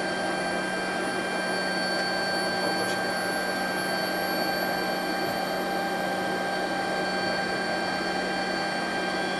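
Handley Page Victor's Rolls-Royce Conway jet engines running, heard inside the cockpit: a steady rush with several high whining tones, the highest climbing slowly in pitch.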